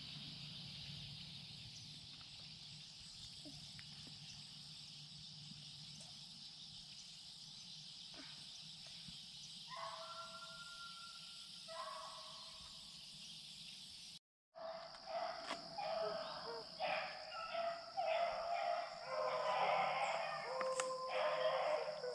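Hounds baying on a rabbit's trail: two short drawn-out bays about ten and twelve seconds in, then after a cut a fuller, louder run of broken baying from several dogs.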